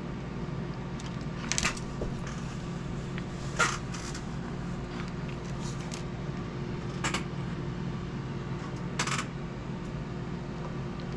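Light clicks and taps of small hard parts being handled and test-fitted as a servo mounting block is tried for thickness, about five separate clicks spread over the stretch. A steady low hum runs underneath.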